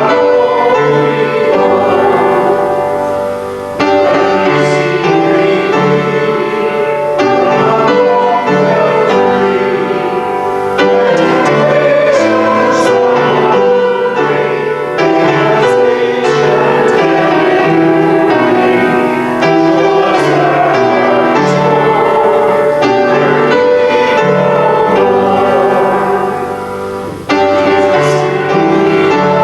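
Piano playing a hymn tune, full chords that change every second or two.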